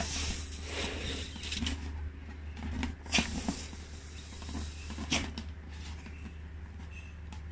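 A latex balloon being blown up by mouth: short puffs of breath into the balloon with rubbing and squeaking of the rubber, several sharp bursts over a few seconds, over a steady low hum.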